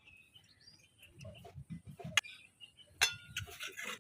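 A sharp click about two seconds in, then a short clatter of clicks near the end, over low thuds, with faint bird chirps at the start.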